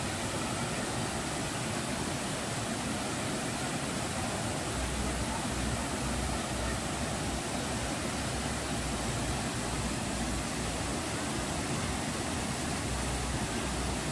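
Small waterfall, a thin, evenly spread sheet of water falling onto rocks: a steady rush of water.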